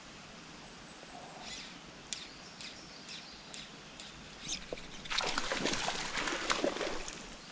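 Faint bird chirps over quiet outdoor background. About five seconds in, a loud spell of splashing lasting about two seconds: a hooked trout thrashing at the pond's surface.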